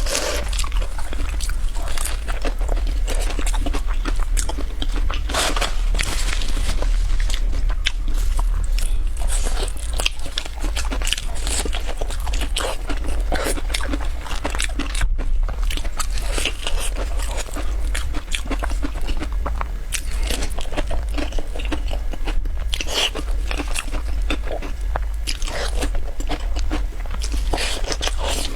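Crisp pumpkin biscuits being bitten and chewed close to the microphone: a dense run of crunchy, crackly bites and chewing, over a steady low hum.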